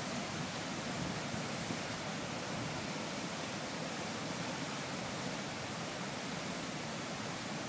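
Floodwater rushing over a spillway and cascading down eroded rock ledges into churning rapids: a steady, unbroken rush of turbulent water.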